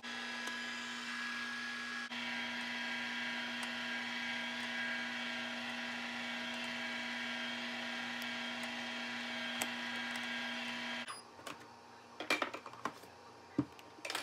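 Electric ice cream maker running, its motor turning the paddle through the ice cream base with a steady hum. The hum cuts off suddenly about eleven seconds in, followed by a few light knocks and clatters.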